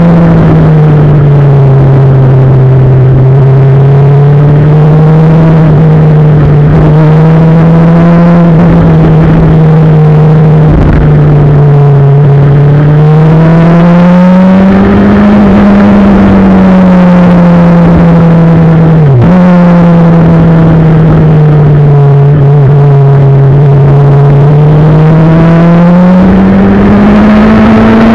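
Motorcycle engine running loud and steady at road speed, its pitch rising and falling gently with the throttle, with one quick dip and recovery about two-thirds of the way through. A steady rush of wind and road noise runs underneath.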